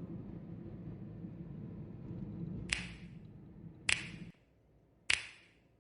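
Three evenly spaced finger snaps, about one every 1.2 seconds, each with a short echoing tail, over a low steady hum that cuts off suddenly after the second snap.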